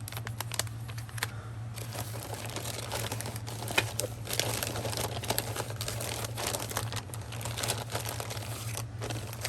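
Plastic packaging crinkling and rustling as small bagged craft pieces are handled, with many small irregular clicks and crackles; a steady low hum runs underneath.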